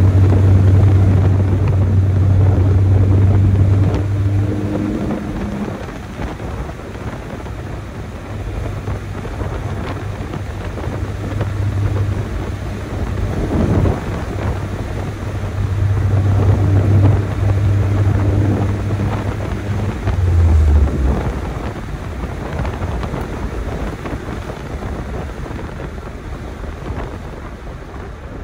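Chevrolet S10 pickup's four-cylinder engine running under load: a low, steady drone that swells three times over the first twenty seconds and drops briefly in pitch about twenty seconds in. After that only road and wind noise remain.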